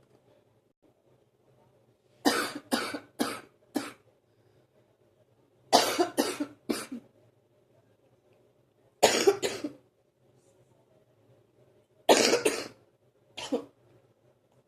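A person coughing in repeated fits, each a run of two to four sharp coughs, with a few seconds' pause between them. It is a morning cough that the person says they cough up for about 45 minutes before it clears.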